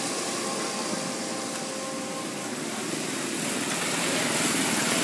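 Small motorbike engines in street traffic: two motorbikes ride away and their sound fades, then it rises again toward the end as another approaches.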